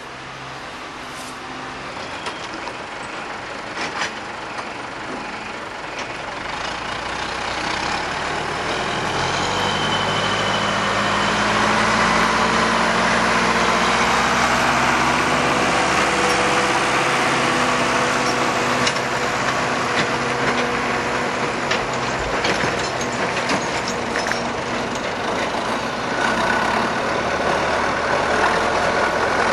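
Farm tractor's diesel engine pulling a circus wagon, growing louder over the first twelve seconds or so as it draws near, then running steadily close by.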